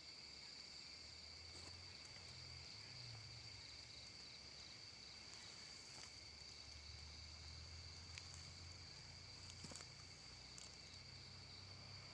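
Faint, steady chorus of night insects, a continuous high-pitched drone, over a faint low hum.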